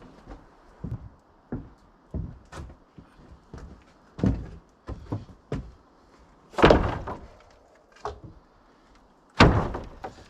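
Heavy freshly sawn hard maple boards being set down on a drying stack: a series of wooden knocks and thuds. The two loudest thuds come about six and a half and nine and a half seconds in.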